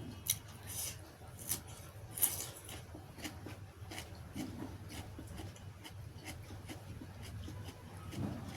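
Close-up eating sounds from a meal of egg and rice: chewing and wet mouth clicks, irregular and sharp, a few each second.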